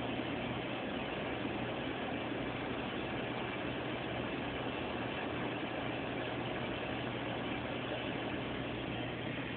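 Aquarium pump running with a steady low hum under an even hiss.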